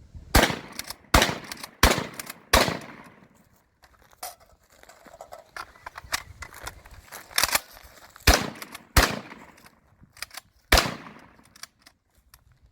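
Adler B230T straight-pull shotgun firing SSG buckshot in rapid succession: four shots about two-thirds of a second apart, then about four seconds of quieter clicks and knocks, then four more shots spread over about three and a half seconds.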